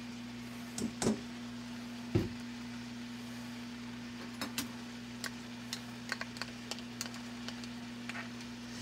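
Small knocks and clicks of a sauce bottle and a plastic measuring cup being handled while sweet chili sauce is measured and poured, with one heavier knock about two seconds in, over a steady low hum.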